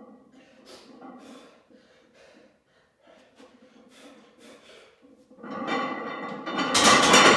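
A run of short, sharp breaths or snorts as the lifter braces between heavy barbell pulls. About five seconds in, background music comes in loudly and grows loudest near the end.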